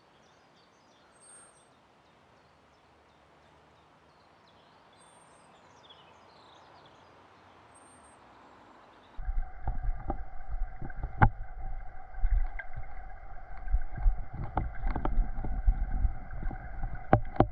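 Quiet riverside air with three faint high bird chirps, then from about nine seconds in the sound of a camera under the river: a loud, deep rumble of flowing water with frequent sharp clicks and knocks and a steady hum.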